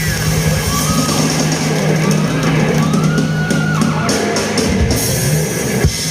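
Live rock band with electric guitar and drums playing: a long held low note with guitar bends gliding above it, then a run of drum and cymbal hits about four seconds in.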